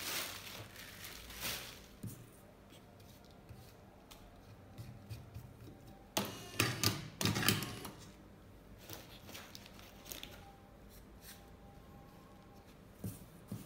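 Light clicks and the rustle of fine tobacco being handled. About six seconds in, there is a short burst of mechanical clatter lasting about a second and a half as the Prof Matic T3's electric motor drives the filling tube to push the tobacco into a filter tube.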